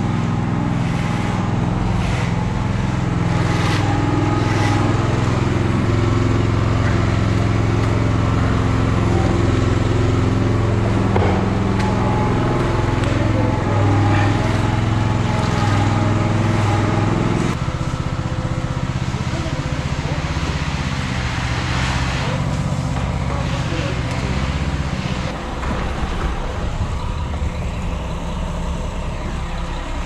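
Concrete mixer truck's diesel engine running steadily at raised revs, then dropping to a lower, quieter idle a bit past halfway.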